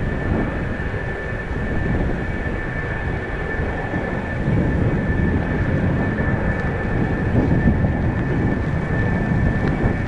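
Strong wind buffeting the microphone in an uneven rumble, over the distant drone of a Fuji T-7 trainer's turboprop engine as the aircraft climbs away.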